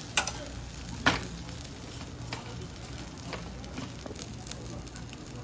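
Freshwater eel pieces sizzling steadily on a char-grill's wire mesh, with scattered sharp pops, the two loudest about a second apart near the start.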